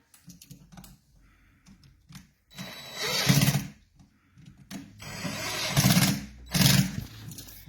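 Screwdriver tightening the terminal screws on a new electrical outlet, in three bursts of about a second each with short pauses and small clicks between them.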